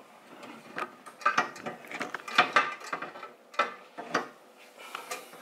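Band saw table and its toothed tilt quadrant being handled and fitted onto the saw's mount: an irregular run of knocks and clicks, with the loudest clatter in the middle.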